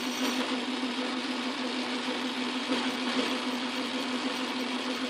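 Montgomery Wards Logan metal lathe running steadily under its motor, a constant hum with no cutting or knocks.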